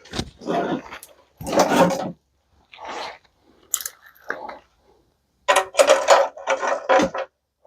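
Salvaged microwave parts and wiring being handled and set down, clattering and rattling in irregular bursts with a busy run of knocks in the last couple of seconds.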